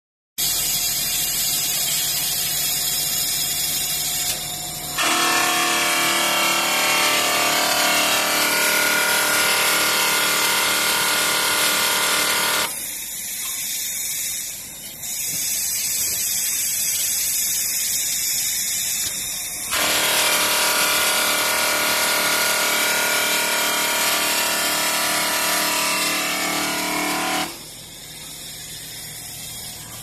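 Semi-automatic double-ended polishing machine running, its motor-driven polishing wheels working on stainless steel electric kettle bodies: a loud, steady whirring grind with several fixed tones. It changes abruptly several times, fullest from about five to twelve seconds and again from about twenty to twenty-seven seconds, thinner and hissier in between.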